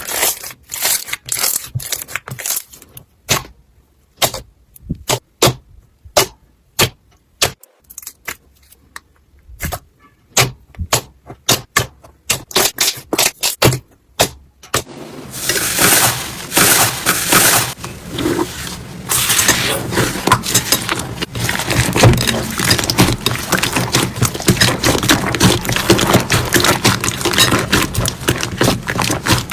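Slime being squeezed and poked by hand: scattered sharp clicks and pops at first, turning to dense, continuous crackling and squishing about halfway through.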